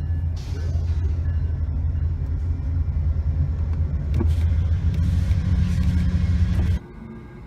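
Loud, steady low vehicle rumble with passing swells of hiss, cutting off abruptly about seven seconds in, leaving a faint hum.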